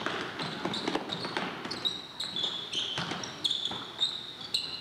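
Basketball bouncing on a gym floor during play, with sneakers squeaking on the court in short, high squeaks from about two seconds in.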